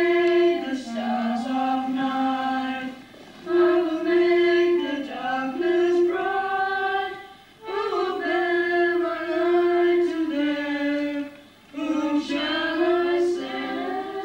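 A group of boys with unbroken voices singing a hymn together, in phrases of held notes with brief pauses between.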